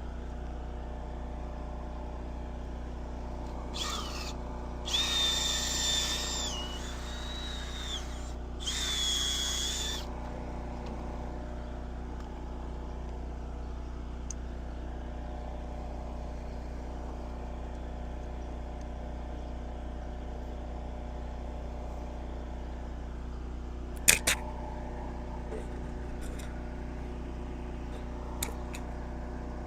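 A handheld power tool runs in three short bursts of high-pitched whine about four to ten seconds in, over a steady low mechanical hum. A couple of sharp metallic clicks follow near the end.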